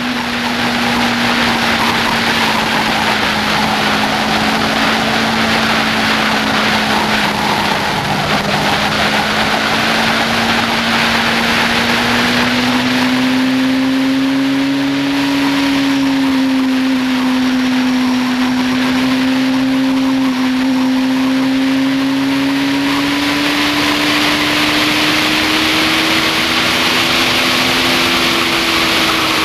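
2007 Yamaha FZ6n inline-four motorcycle engine with a Leo Vince exhaust running steadily at speed, its pitch sagging slightly about a quarter of the way in and then climbing slowly toward the end. Heavy wind rush over the microphone throughout, strongest near the end.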